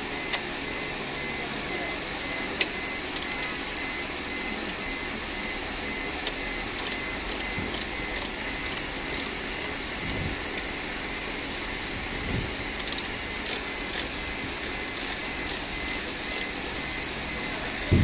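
Light clicks and taps of the Ertiga rooftop AC's plastic cover being handled and worked loose, in small clusters, with a couple of dull thumps near the middle, over a steady background hiss.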